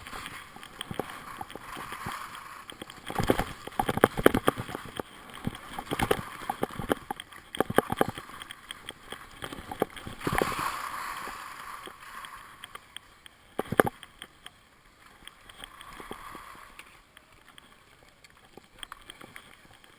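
Snowboard riding over packed snow: the board's edges scraping and hissing, with a rattle of sharp knocks and one heavy thump about fourteen seconds in. The scraping dies down over the last few seconds as the board slows to a stop.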